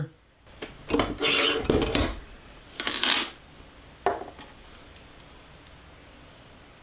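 Metal clattering and scraping at a hand-lever arbor press as the stamp and setup blocks are handled after a stamping: a longer rattling clatter about a second in, a shorter one around three seconds, and a single click near four seconds.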